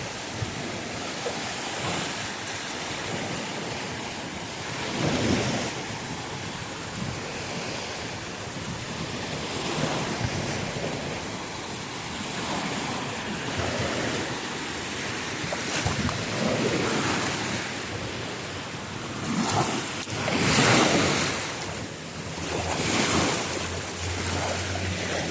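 Choppy sea waves breaking and washing in, swelling and fading every few seconds, with wind on the microphone.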